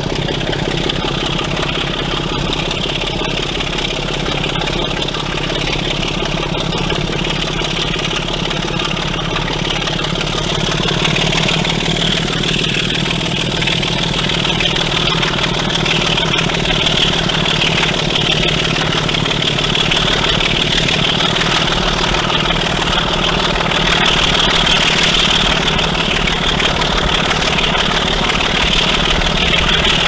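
Class 25 diesel locomotive's six-cylinder Sulzer engine working hard as it hauls the train, a steady pulsing throb heard from a carriage window behind it, growing a little louder over the stretch.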